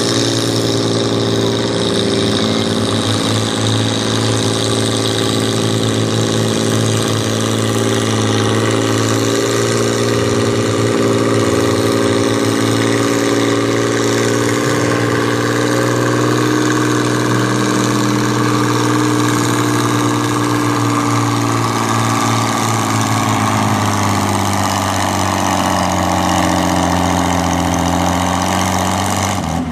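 Farm pulling tractor's engine running steadily under load, its pitch sinking gradually over the last several seconds as the engine is pulled down.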